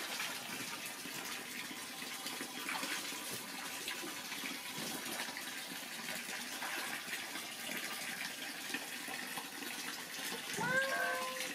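Water pouring steadily from a thin stream into a filled inflatable paddling pool, with light splashing as a small monkey swims in it. A short voice-like call near the end.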